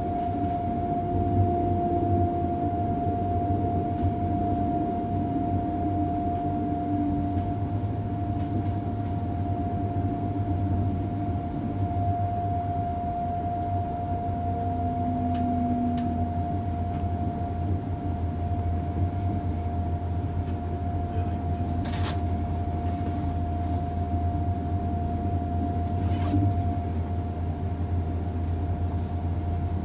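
ICE 3 high-speed electric train heard from inside the front passenger compartment: a steady low rumble of the running train with a constant whine throughout, and a few faint clicks in the second half.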